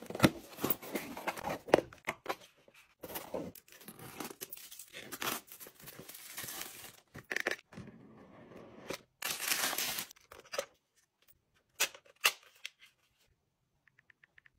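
Packing tape and cardboard being torn and pulled as a shipping box is opened, with rustling and crinkling of packaging and a few sharp clicks as the product box is handled. Near the end come faint quick ticks from a phone's on-screen keyboard.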